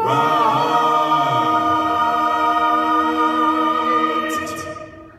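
Five-voice male a cappella quintet holding the final chord of a gospel song, the lowest voice dropping out about a second and a half in and the chord fading away near the end.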